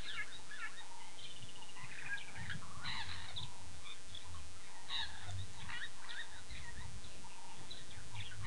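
Several wild birds calling and chattering, with a falling trill of quick notes about one and a half seconds in. Low rumbles come and go underneath.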